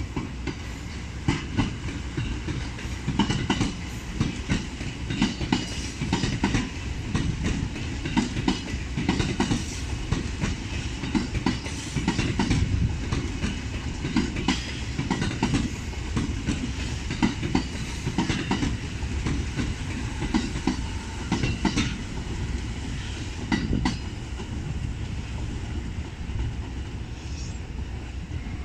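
Electric commuter train running past close by, its wheels clicking repeatedly over the rail joints over a steady rumble. The sound eases off near the end as the train draws away.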